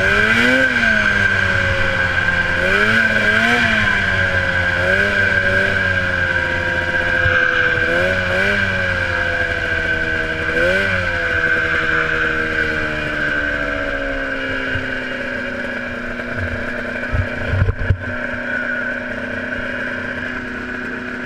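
1977 Polaris TXL snowmobile's two-stroke engine heard from on board, rising and falling in short bursts of revs through the first half, then dropping steadily in pitch as the sled slows. A steady high whine runs under it throughout, and a few knocks come near the end.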